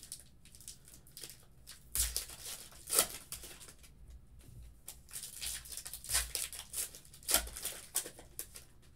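Foil trading card pack being torn open by hand and its wrapper crinkled: a string of short rips and rustles, the loudest about two and three seconds in and again around six and seven seconds.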